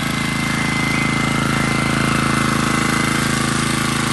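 1 kW portable petrol generator running steadily, a fast even engine beat with a thin steady high tone over it.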